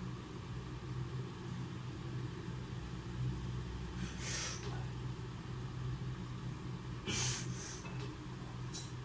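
A man breathing out sharply while lifting a barbell: one breath about four seconds in, two close together around seven seconds and one near the end, over a steady low hum.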